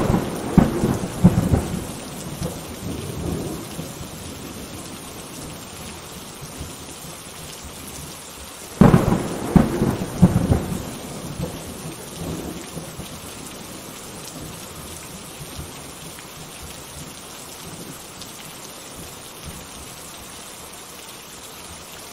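Steady rain with two peals of rolling thunder, one right at the start and another about nine seconds in, each breaking suddenly and rumbling off over a few seconds.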